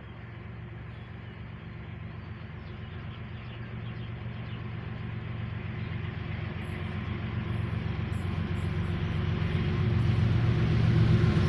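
Diesel locomotive approaching along the track, its engine rumble growing steadily louder as it nears. Faint high ticking sets in about halfway through.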